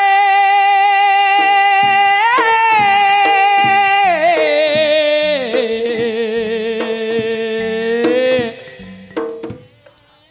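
Live traditional music: a loud wavering melody line holds a high note, then slides down to a lower one, with drum strokes joining about a second and a half in. The music breaks off about eight and a half seconds in, leaving only a few faint notes.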